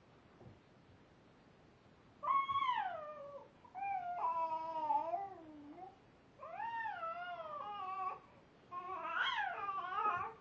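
An infant's high-pitched squealing vocalisations: four drawn-out, wavering calls, mostly falling in pitch, with short pauses between them.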